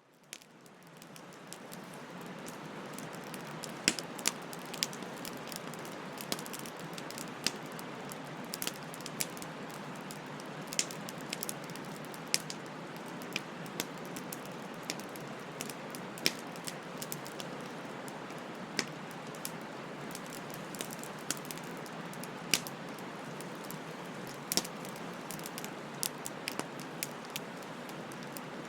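Wood fire burning: a steady hiss with sharp, irregular crackles and pops, fading in over the first couple of seconds.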